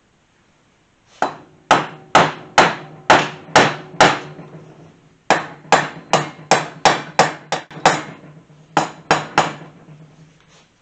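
Sharp hammer taps on the cast aluminium cylinder head of a Kawasaki KZ400 engine, struck to break the stuck head loose from the cylinder. The blows come in three runs, about two a second, then a quicker run of a dozen, then three more, with a low metallic ring under them.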